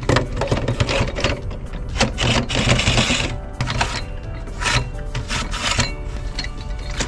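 Background music over the clicking and rattling of an aluminium fishing platform being unfolded and its legs adjusted, with a denser burst of scraping noise a little before the middle.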